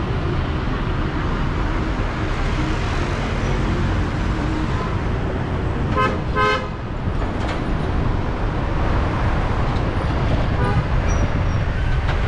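Steady road traffic rumble. A car horn gives a short honk about six seconds in, and a fainter honk follows a few seconds later.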